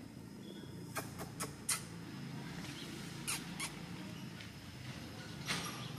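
A handful of short, sharp clicks or scratches: a quick run of four about a second in, two more a little past three seconds and one near the end, over a steady low background hum.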